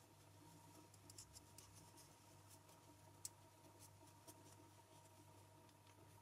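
Near silence: a steady low room hum with a few faint clicks and rustles of knitting needles working yarn.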